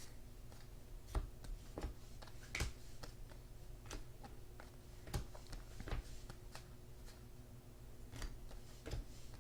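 Trading cards being handled and sorted: scattered, irregular clicks and taps, a dozen or so, over a faint steady hum.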